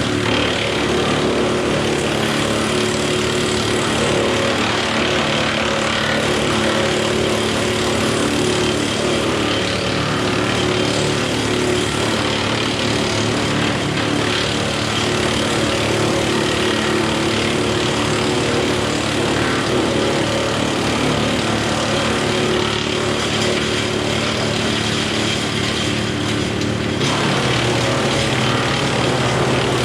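Compact diesel tractor engine running steadily, its note shifting near the end.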